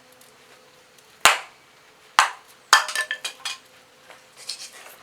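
Two sharp knocks about a second apart, then a quick run of ringing metallic clinks and a softer clatter near the end, as wood and metal stove parts are handled.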